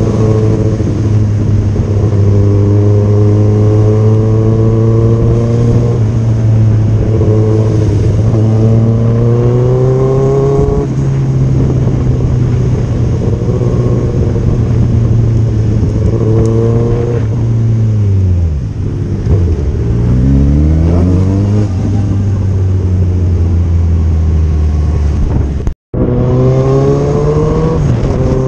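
Motorcycle engine under way, heard from the rider's own bike, holding a steady pitch and then stepping down and climbing back in pitch as the rider eases off and accelerates through the gears. The pitch drops low before climbing again about two-thirds of the way through. The sound cuts out for a split second near the end.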